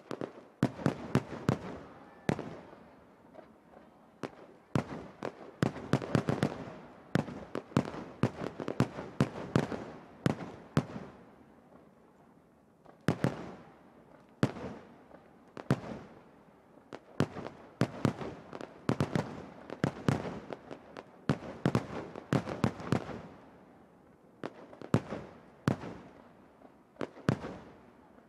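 Aerial firework shells bursting in a rapid barrage: sharp bangs in quick clusters, several a second, beginning abruptly and going on in waves with short lulls between them.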